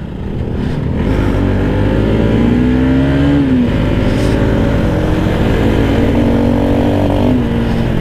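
Bajaj Pulsar NS200 single-cylinder motorcycle engine under way, its revs climbing for a couple of seconds and then dropping suddenly about three and a half seconds in as it changes gear, then pulling steadily with another dip near the end.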